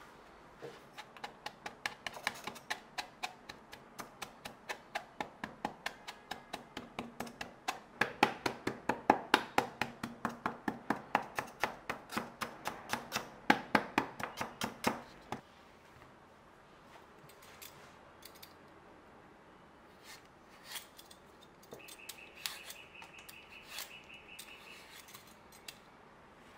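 Rhythmic sharp strokes of kitchen work, about three a second for some fifteen seconds, growing louder halfway through, then stopping. A few scattered clicks follow, and a brief thin steady high tone sounds near the end.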